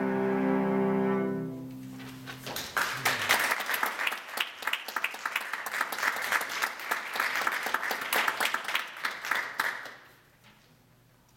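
Two cellos play a final chord that dies away within the first two seconds. Then audience applause starts and runs for about seven seconds before dying off suddenly.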